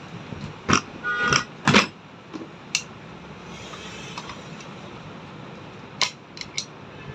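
Hand tools clicking, tapping and clinking against the metal parts of an electric churner motor as it is taken apart, a quick cluster of knocks with a short metallic ring in the first few seconds and three more taps about six seconds in.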